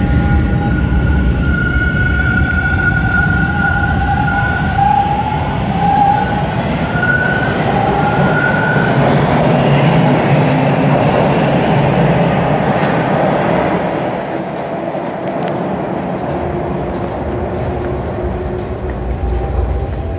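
TTC T1 subway train pulling out along the platform: a whine that steps up in pitch over the first nine seconds, over the heavy rumble of the cars, dropping away about fourteen seconds in.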